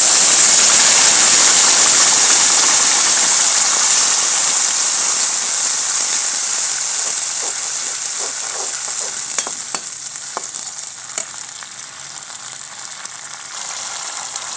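Gravy masala paste hitting hot refined oil in a kadhai: a loud sizzle that slowly dies down, with the ladle clinking and scraping against the pan as it is stirred about halfway through.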